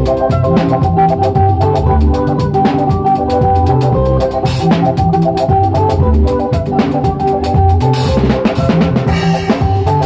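Live band music played loud through a sound system: a drum kit keeps a steady, even beat under sustained pitched instrument lines.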